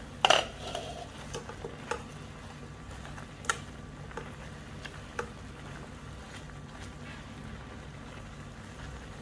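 Silicone spatula stirring chicken pieces in a nonstick kadai of simmering gravy. There is a sharp clank against the pan right at the start, then several lighter knocks over the next few seconds, over a steady low hum.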